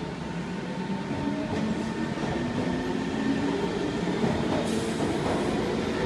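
Kawasaki C151 metro train pulling away from a station platform: the traction motors give a whine that rises in pitch as it accelerates, over a rumble of wheels on rail that grows louder.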